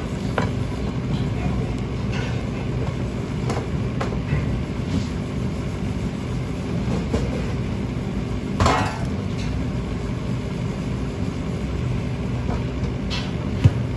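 Steady hum of commercial kitchen machinery, with scattered light clicks and knocks. A louder clatter comes about nine seconds in, and a sharp knock near the end.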